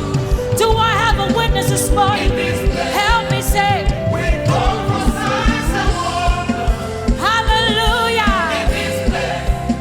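Live gospel praise music: singers with a band and a steady drum beat.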